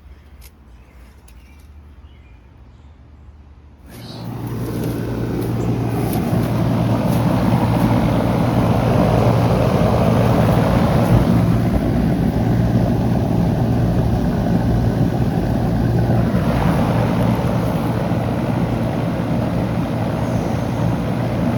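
Outdoor air-conditioner condensing unit starting up about four seconds in: the compressor comes on with a steady low hum and the condenser fan noise swells over a couple of seconds, then runs steadily.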